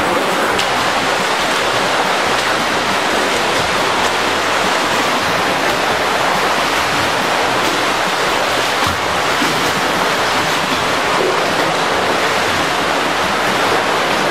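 Continuous splashing and churning of water from several swimmers kicking and stroking through the lanes of an indoor swimming pool, a steady rushing noise.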